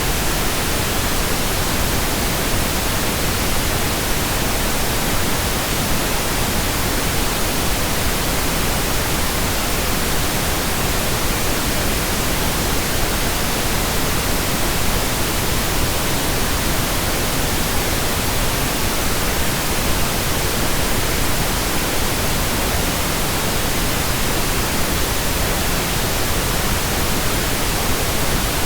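Steady pink noise: an even, unchanging hiss spread across all pitches, with no breaks or changes.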